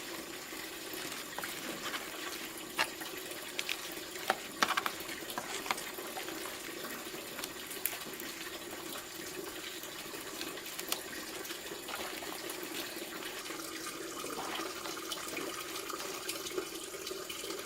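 Steady running water, with a few sharp clicks and knocks, most of them between about two and six seconds in.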